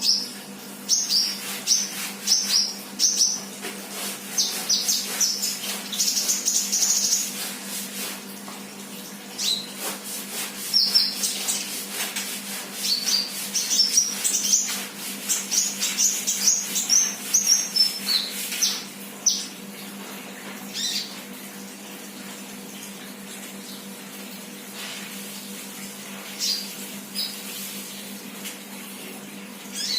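Sunbird chirping and singing in quick runs of short, high-pitched notes, dense at first and thinning to a few scattered chirps after about two-thirds of the way through, over a steady low hum.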